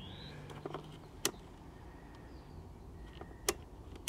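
A few sharp clicks while a CRT tester is worked, the clearest about a second in and near the end, over a low steady hum.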